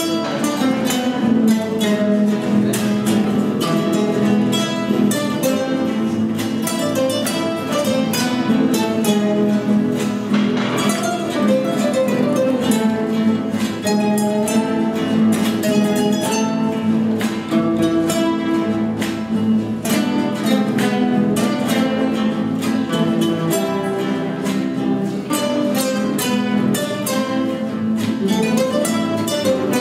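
An ensemble of about ten classical guitars playing a cueca together, with rhythmic strummed chords and plucked notes.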